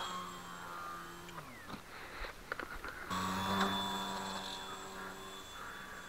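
Hyperion brushless outrunner motor spinning an APC 8x3.8 slow-fly propeller on a small RC aerobatic plane, a steady whine. About a second and a half in, the pitch slides down and dies away as the throttle comes off. A few light clicks follow, then the whine comes back abruptly at about the halfway point and slowly fades.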